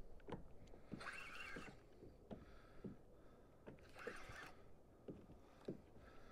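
Near quiet: faint, irregular light knocks from a fishing kayak's hull and gear, with two brief soft hisses about a second and about four seconds in.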